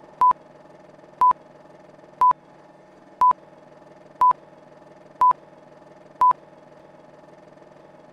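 Film countdown leader beeps: seven short beeps on one tone, one each second, over a steady faint hum. The beeps stop a little after six seconds in.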